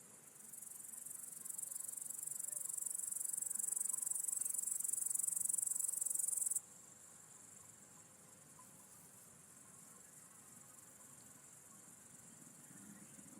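High-pitched insect trilling. One loud call swells over the first few seconds and cuts off suddenly about six and a half seconds in, leaving a fainter, steady high trill.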